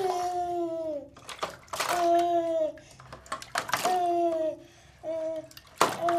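Water splashing as it is poured over a toddler in a bath, with the toddler crying out after each splash: about four short, drawn-out wails, each falling slightly at the end.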